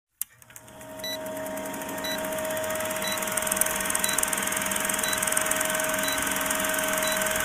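Film countdown leader sound effect: an old film projector running with a rapid, even clatter and a steady hum, with a short beep about once a second. It fades in over the first second.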